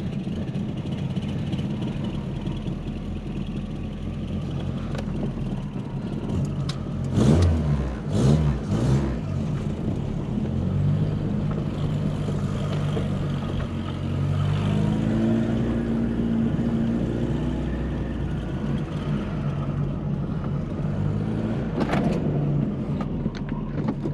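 Carburetted four-cylinder engine of a VW Polo coupe running at idle after a rebuild, with a few short, louder surges about seven to nine seconds in and the engine note rising for a while around the middle.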